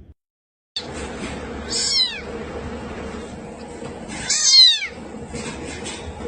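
A cat meowing twice, two short high cries that fall in pitch, the second louder and longer, over a steady background hum.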